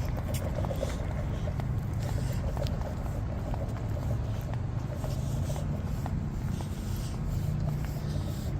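Steady low rumble of road traffic on the street, with a few faint ticks over it.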